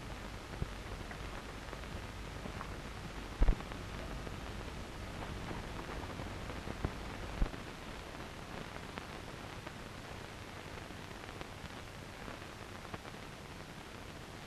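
Steady hiss of an old 1930s optical film soundtrack with no dialogue, broken by a few crackles and pops; the loudest is a sharp double pop about three and a half seconds in.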